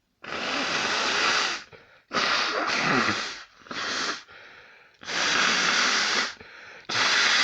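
A person blowing their nose hard, again and again: about five long, forceful blasts, each up to a second or more, with short breaths between. The uploader puts the congestion down to allergies.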